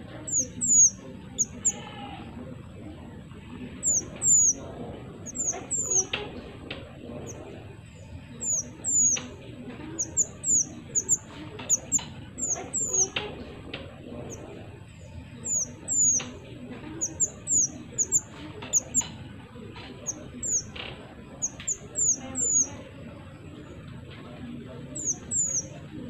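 Small minivet (mantenan mini) singing: thin, high-pitched whistled notes, each a quick curved slur, given in rapid groups of two to four again and again over a faint steady background hiss.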